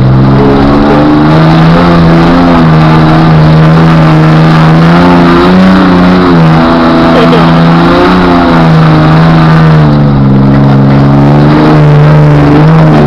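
Off-road vehicle engine revving hard under load, very loud, its pitch jumping up near the start, wavering, dipping about two thirds of the way through and climbing again near the end as the throttle is worked.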